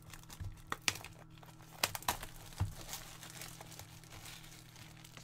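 Plastic shrink-wrap crinkling and tearing as it is pulled off a cardboard trading-card booster box, with scattered crackles and a few sharper snaps in the first couple of seconds.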